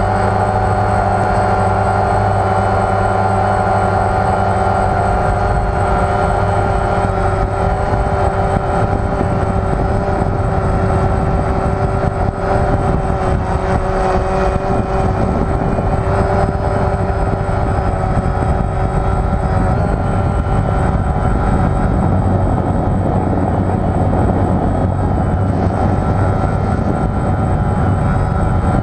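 DJI Phantom quadcopter's four electric motors and propellers whining steadily in flight, several held pitches over a rushing buzz, heard up close from a GoPro hard-mounted on the frame. The pitches shift slightly now and then as it manoeuvres.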